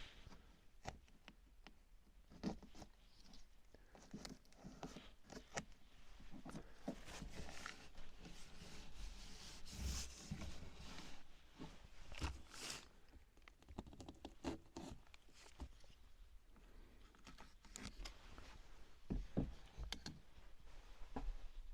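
Faint, scattered knocks, clicks and rustling of hand work with window-install materials, irregular and without any steady machine sound.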